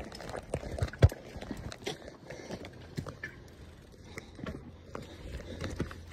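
Mountain bike riding over a rough dirt singletrack: tyres rolling on dirt and roots, with irregular rattles and knocks from the bike as it goes over bumps. The sharpest knock comes about a second in.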